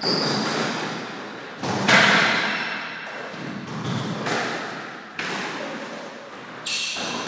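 A squash rally: the ball cracking off rackets and the court walls, with sharp hits about once a second, each ringing in the hard-walled court, the loudest about two seconds in. Shoes squeak briefly on the wooden floor between the hits.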